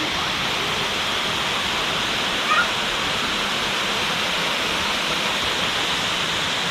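Panchalingam waterfall: a steady, even rush of falling water.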